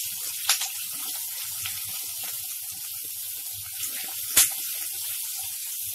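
Onions, green chillies and capsicum sizzling in hot oil in a wok on full flame while being stirred with a silicone spatula: a steady hiss with light scraping clicks. One sharp tap a little over four seconds in.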